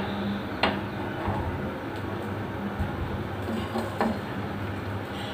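Kitchen utensils clinking sharply twice near the start and once more about four seconds in, over a steady low hum.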